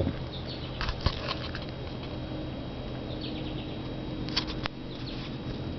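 Faint scattered scrapes and clicks from hands handling the subwoofer and the camera, over a low steady hum.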